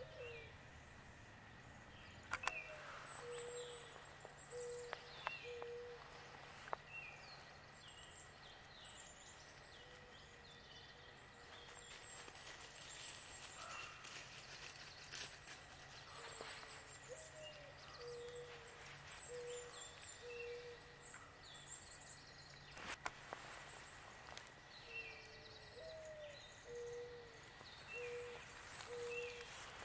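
Faint woodland birdsong: a low call of four or five short, even notes, the first one rising, repeated three times, over thin, very high-pitched twittering. A few sharp clicks break in.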